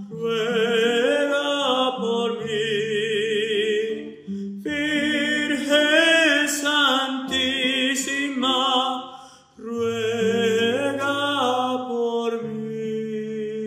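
A man singing slow sustained phrases with vibrato, accompanied by a classical guitar. There is a brief pause between phrases about nine seconds in.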